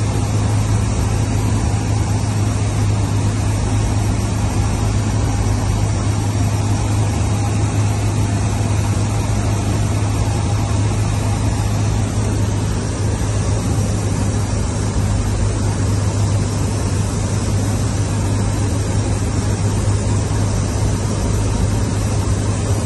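Cessna 152's four-cylinder Lycoming O-235 engine and propeller running steadily in flight, heard inside the cockpit as a loud, even drone with a strong low hum and airflow noise.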